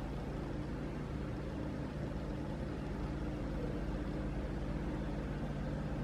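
Steady low hum of a car running, engine and road noise heard from inside the cabin.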